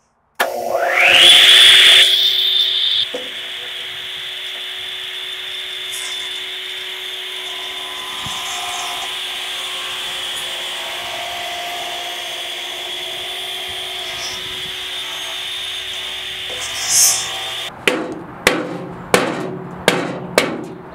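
DeWalt GR 53 14-inch radial arm saw starting up with a rising whine, then running at a steady pitch while its blade is pulled across a wood slab to skim the surface level. Near the end the saw sound cuts off and a hammer knocks on the wood about twice a second.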